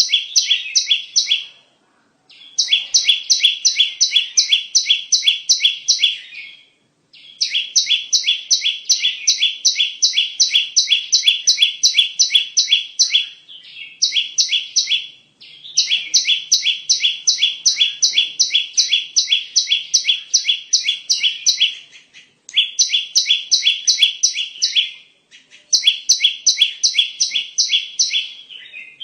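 Prinia (perenjak) song played as a trapping lure call: bouts of rapid, evenly repeated sharp chirps, about six a second, each bout lasting a few seconds with brief pauses between.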